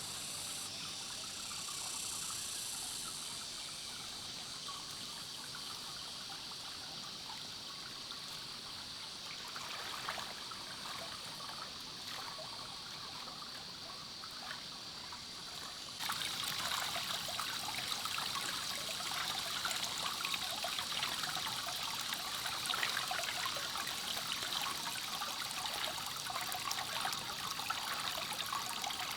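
Water trickling and running steadily. About halfway through it turns abruptly louder and busier.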